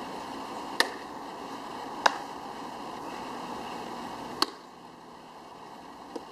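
Three sharp impacts of a softball, the second about a second after the first and the third about two seconds later, then a fainter one near the end, over steady background noise.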